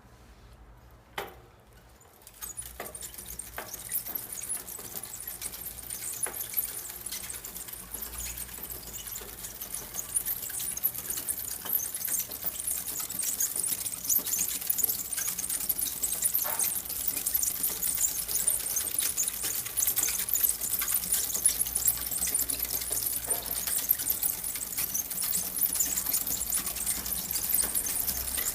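Dry, unlubricated bicycle chain, freshly washed in kerosene, squeaking and chirping as it runs, a dense high-pitched squeaking that starts about two seconds in and grows louder, with a few sharp clicks. A dirty chain whistles and squeaks much the same way: the sign that the chain needs cleaning and oiling.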